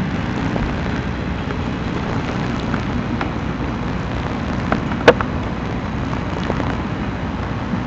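Wind buffeting the camcorder's microphone, a steady rough low rumble, with one sharp click about five seconds in.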